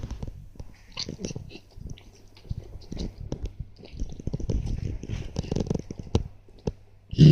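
A pet reverse sneezing: a run of rapid, irregular snorting gasps drawn in through the nose, with a louder one near the end.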